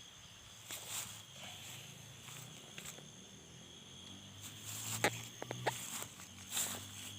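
Footsteps crunching through undergrowth, with a few sharp snaps about five seconds in, over a steady high chirring of night insects.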